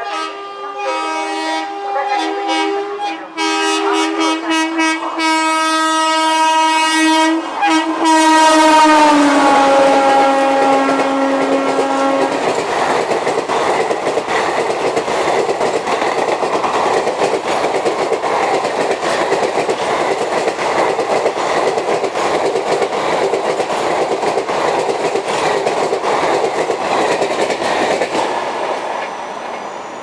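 Multi-tone air horn of an Indian Railways WAP-4 electric locomotive: a run of short honks, then one long blast that falls in pitch as the engine passes. Then the express's coaches rush by at speed with a steady rattle and clickety-clack of wheels over rail joints, fading near the end.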